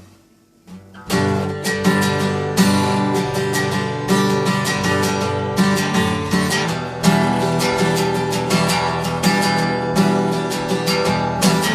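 Acoustic guitar strumming chords in a steady rhythm as the song's instrumental intro, coming in about a second in.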